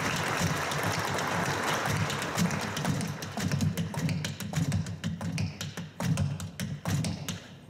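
Tap shoes striking a wooden tap board in a quick run of heel and toe taps, a heel, toe, toe, heel pattern. An even hiss sits under the taps in the first couple of seconds.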